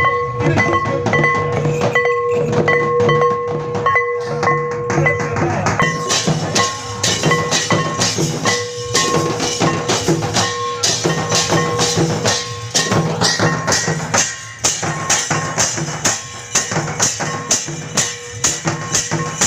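Santali festival drumming: tumdak' barrel drums and tamak' kettle drums beaten in a fast, steady rhythm. A bright metallic shimmer, cymbals, joins from about six seconds in. A held pitched note sounds on and off through the first half.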